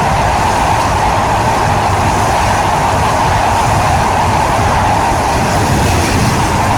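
Steady running noise of a moving train, even and unbroken.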